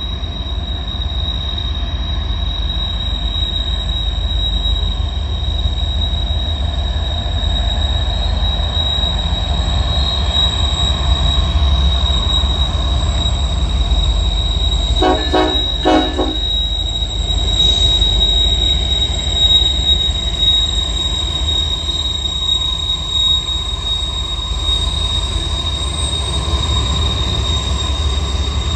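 Loaded coal train rolling past behind Norfolk Southern diesel locomotives: a steady low rumble with a continuous high-pitched wheel squeal. A short two-part horn blast sounds about halfway through.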